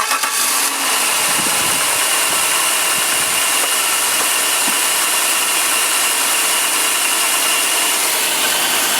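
Cadillac Northstar V8 catching within the first second after a brief starter crank, then running steadily at idle, heard close up in the engine bay. It started after the starter was tapped with a steel rod while the start relay was held in, which the owner takes as a sign that the starter is failing.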